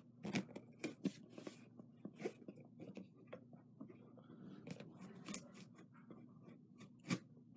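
Shipping package being handled before opening: scattered crinkles, rustles and light knocks of packaging, with sharper clicks about a second in and near the end.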